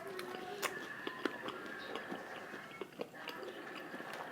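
Quiet chewing and small mouth clicks of someone eating fried chicken, with a faint steady tone behind them.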